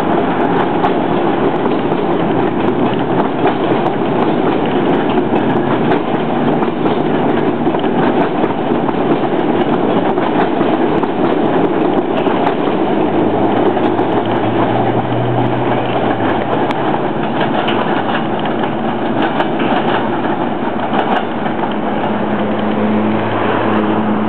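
Amtrak passenger train rolling past: a steady loud rumble of its stainless-steel cars, with many sharp clicks of the wheels over rail joints and switches. It eases slightly near the end as the last cars pass.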